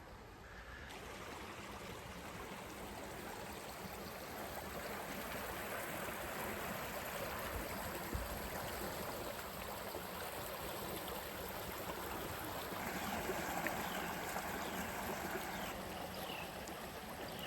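A creek flowing, a steady rush of running water that grows louder over the first several seconds and then holds.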